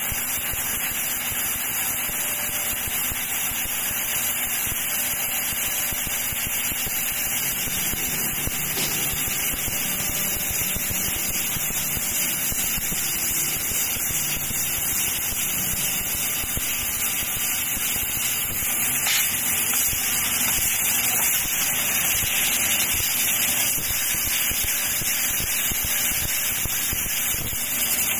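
Laser cutting machine cutting steel sheet: a steady, loud hiss of the gas jet blowing from the cutting head, with machine running noise beneath.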